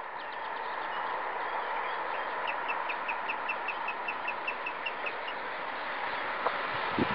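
A bird calling a quick run of short, evenly spaced notes, about five a second, for around three seconds in the middle, over a steady hiss. Two soft thumps come near the end.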